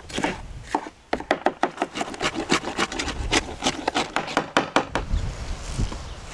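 Knife chopping bell peppers on a wooden cutting board: quick knocks of the blade against the board, about six a second, stopping about five seconds in.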